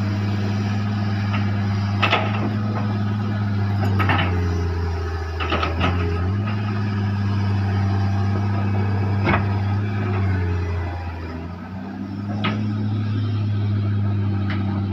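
Hitachi hydraulic excavator's diesel engine running under load as its grapple lifts a heavy log, the engine note pulling down twice as the machine strains. Several sharp knocks and clanks of the grapple and logs come through.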